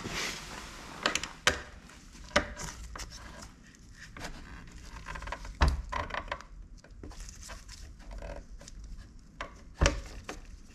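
Parts of a car's electric window regulator being worked apart by hand: irregular plastic and metal clicks, creaks and scrapes, with two sharper knocks, one about halfway through and one near the end.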